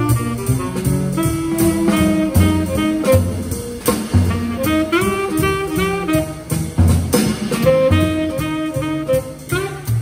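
Small jazz group playing live: a tenor saxophone carries the melody over plucked double bass notes and a drum kit keeping time on the cymbals.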